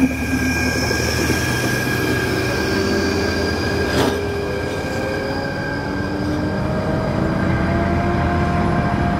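Slow-moving tow train: locomotives hauling two Lint diesel railcars, with wheels squealing steadily in a high pitch over a low engine drone. A single knock comes about four seconds in, and a whine slowly rises in pitch after it.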